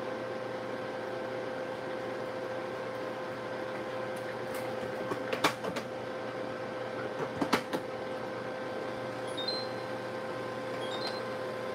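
Steady hum of a household appliance, with two short bursts of sharp knocks and clatter from kitchen work about five and a half and seven and a half seconds in.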